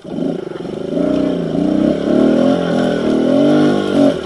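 Small dirt bike engine revving up and down under load as it climbs a steep hill, its pitch rising and falling with the throttle.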